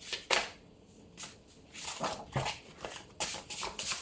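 Tarot cards being shuffled and handled by hand: a run of short, irregular papery slaps and flicks.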